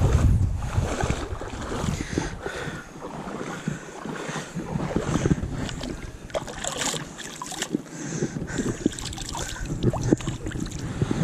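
Bare feet wading through shallow river water over a gravel bed, with irregular splashing and sloshing at each step. Wind buffets the microphone at the start and again near the end.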